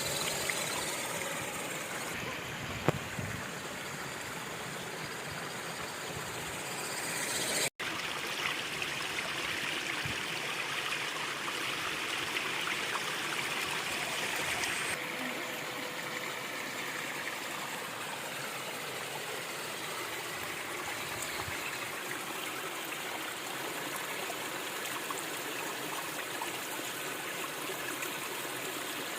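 Waterfall water rushing steadily. The sound drops out for an instant about eight seconds in and changes abruptly again about halfway through, as at cuts between shots.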